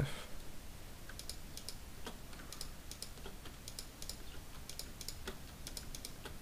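Computer keyboard keys clicking in scattered pairs and short runs, a few strokes a second, as editing hotkeys are pressed.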